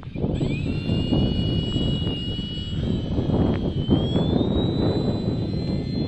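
Brushless electric motor and 9x5 propeller of a Multiplex Xeno model plane spinning up to a high, steady whine just after the start, climbing higher in pitch about halfway through, over wind buffeting the microphone.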